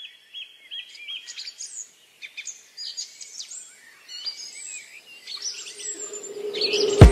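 Birds chirping and calling: quick runs of repeated high notes and short rising and falling whistles. Near the end a low drone swells and a single sharp, loud hit sounds as music comes in.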